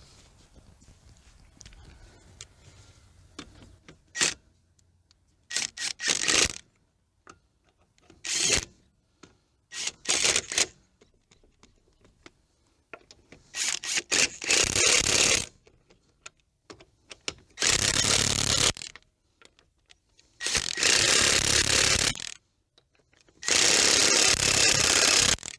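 A power tool running the 19 mm lug nuts onto the wheel studs in eight short bursts, the later bursts longer as the nuts run down and tighten.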